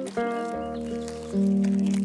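Background music of long held notes, the notes changing twice.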